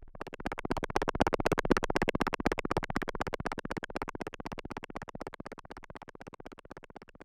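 Ableton Drift synthesizer preset playing a noisy, rapidly pulsing sound in a fast, even train of pulses. It starts abruptly, swells over the first couple of seconds, then slowly fades.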